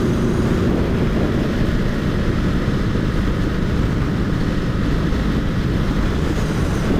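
Steady wind rush and engine noise from a Honda CBR1000RR at highway speed, mixed with the exhaust of cruiser motorcycles riding alongside, which are pretty loud.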